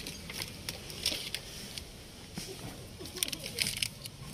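Handling noises: scattered light clicks and rustling as small wiring parts are handled.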